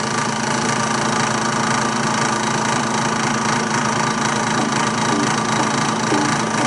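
Drill press running steadily, its motor and spindle giving an even hum with several steady tones and no change in speed.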